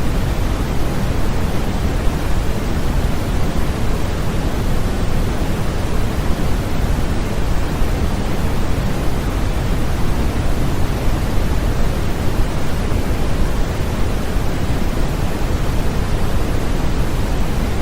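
Continuous white noise for infant sleep: a steady, even rush of noise that is heavier in the low end and does not change.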